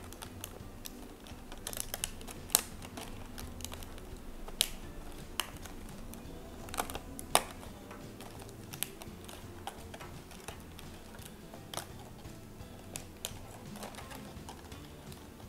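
Thin clear plastic letter and number tiles for a cinema light box being handled and pulled apart from their sheets: irregular sharp plastic clicks and crackles.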